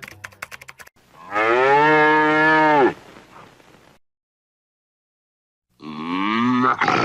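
Cow mooing: one long moo that drops in pitch as it ends, then after a pause of a few seconds a second moo begins near the end, rising in pitch.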